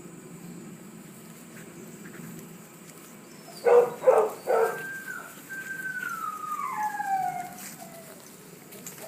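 A dog barks three times in quick succession about halfway through, then gives one long whine that falls in pitch.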